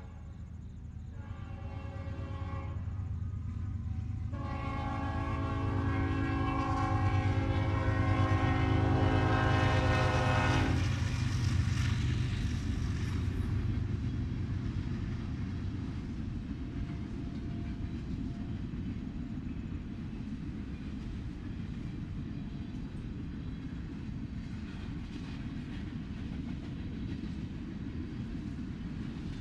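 Norfolk Southern diesel freight locomotive's air horn sounding for a road crossing: two shorter blasts, then one long blast of about six seconds, over the low rumble of the locomotives passing. After the horn stops come the steady rumble and clatter of freight cars rolling by.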